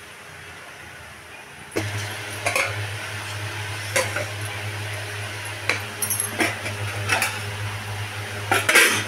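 Steel pot lids being lifted and set down: a string of sharp metal clinks, one every second or so, with the loudest cluster near the end. A steady low hum runs beneath them from about two seconds in.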